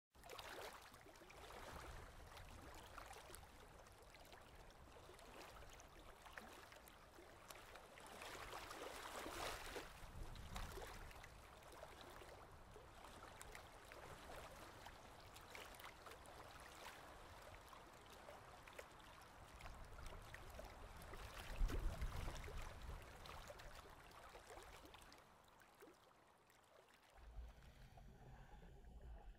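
Faint, steady rushing of water with wind noise, as from a sailboat under way.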